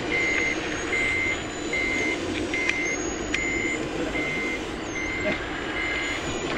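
Reversing alarm on a radio-controlled truck's sound unit, beeping steadily at one pitch about once every 0.8 seconds, over steady background noise.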